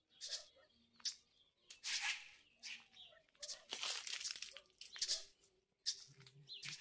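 A string of short hissing noise bursts at an uneven pace, about two a second, each starting sharply and fading. A faint steady tone sits underneath in the second half.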